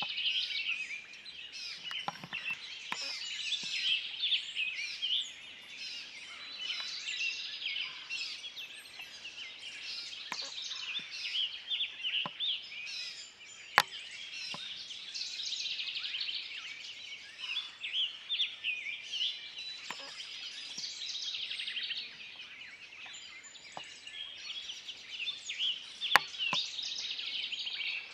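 Many songbirds singing at once, a dense chorus of chirps and trills. A few sharp clicks stand out over it, the loudest about halfway through and again near the end.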